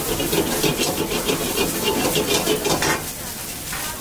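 Noodles stir-fried in a hot pan, sizzling under rapid scraping and clinking strokes of a metal spatula. The stirring eases off about three seconds in.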